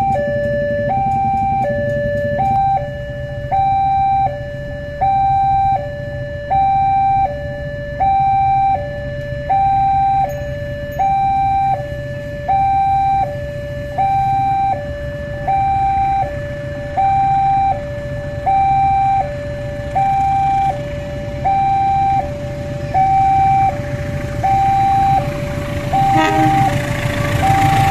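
Railway level-crossing warning alarm sounding a steady electronic two-tone high–low chime, switching about every 0.7 s. Underneath runs a low rumble that grows louder in the last couple of seconds as a CC 201 diesel-electric locomotive hauling a passenger train reaches the crossing.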